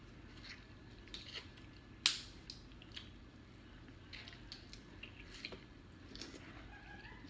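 Eating sounds at the table: biting and chewing corn on the cob and boiled seafood, with scattered small clicks and crackles and one sharp crack about two seconds in.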